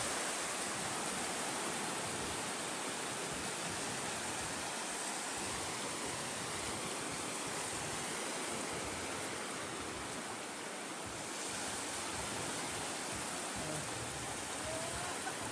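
Steady, even rush of small sea waves washing along the shore, with a constant high hiss over it.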